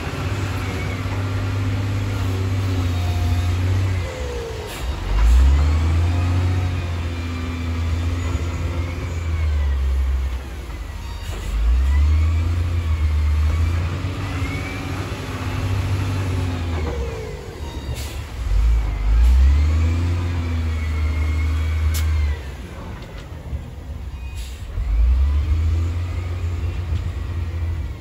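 Wheel loader's diesel engine working under load, a steady low drone whose revs rise and fall four times, about every six seconds, as the machine pushes stone and backs off.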